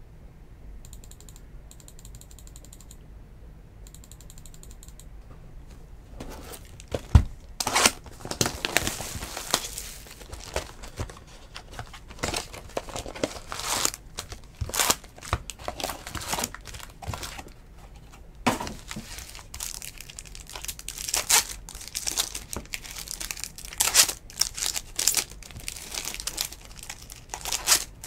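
Foil wrappers of Bowman baseball card packs crinkling and tearing as the packs are handled and ripped open by hand. The first six seconds are quieter, with faint rapid clicking. After that the crinkling comes in dense bursts, with a sharp knock about a second after it starts.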